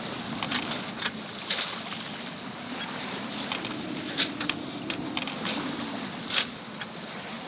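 Sailboat under way in rolling seas at night: a steady rush of water along the hull, with scattered sharp clicks and knocks.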